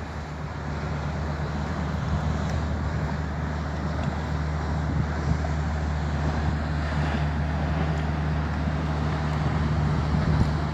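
Steady low drone of a large tanker ship's engines as it passes, with a constant rushing noise of water and wind over it.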